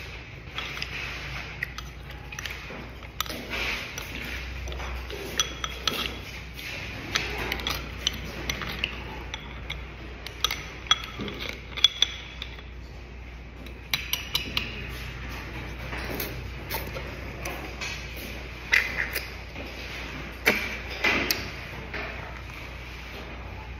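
A metal fork clinking and scraping against snail shells and a ceramic bowl while the snail meat is picked out, in irregular sharp taps and clicks, a few of them louder.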